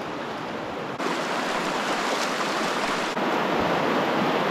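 A shallow river rushing, with water sloshing and splashing around legs as someone wades through it. The sound is a steady rush that gets louder about a second in.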